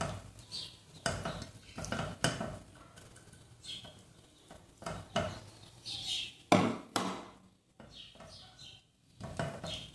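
A kitchen spatula scraping and tapping against a small plastic bowl and the inside of a nonstick pot as minced garlic is scraped into the pot and stirred: a string of separate knocks and scrapes, the sharpest knock a little after six and a half seconds.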